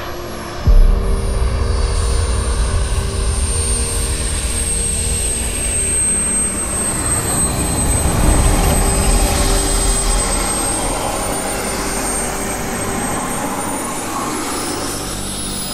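Twin model jet turbines of a large radio-controlled B-2 bomber model running, a high thin whine that drifts slowly up and down in pitch over a rushing noise and low rumble. The low rumble jumps up suddenly just under a second in.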